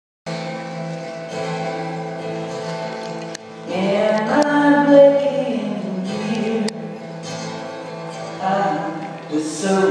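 A guitar playing held chords with a low voice singing, the voice coming in about four seconds in: a vocal-and-guitar sound check.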